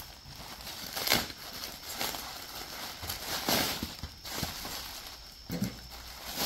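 Plastic packaging crinkling and rustling in irregular bursts as a poly mailer is slit open with a safety knife and a bagged item is pulled out and handled. The loudest rustle comes about a second in.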